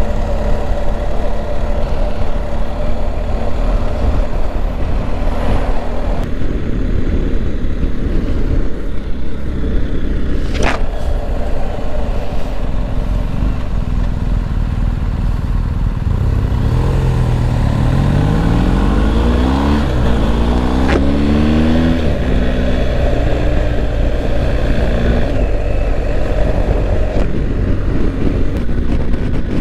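BMW R1250 GS flat-twin engine running as the bike rides along, with road and wind noise. Past the middle it accelerates, the pitch rising and dropping back at each of about two gear changes. A single sharp click about ten seconds in.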